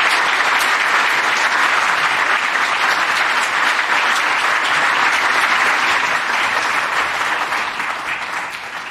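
Congregation applauding with steady clapping, dying away near the end.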